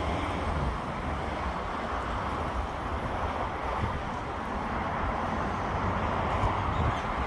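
Steady outdoor ambient noise: an even hiss with a low rumble underneath, with no distinct events.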